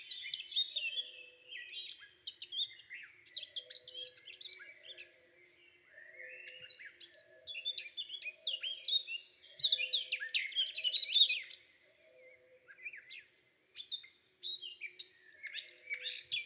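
Several small birds chirping and twittering in quick overlapping calls and trills, with a faint low two-note pattern repeating underneath; the chirping drops away briefly about twelve seconds in, then resumes.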